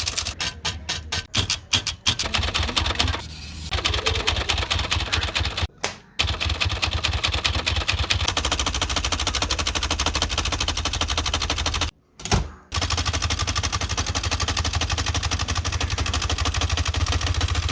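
Typewriter keys striking in a fast, continuous rattle of clicks. The typing pauses briefly about six seconds in and again about twelve seconds in.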